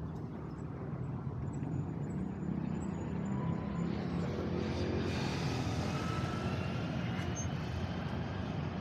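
Street traffic, with a motor vehicle approaching and passing close. Its noise builds over the first few seconds and stays loud through the second half.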